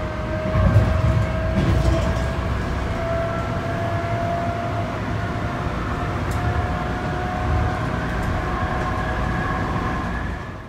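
Light rail train running, heard from inside the passenger car: a steady low rumble under a thin motor whine that slowly rises in pitch, with two knocks in the first two seconds.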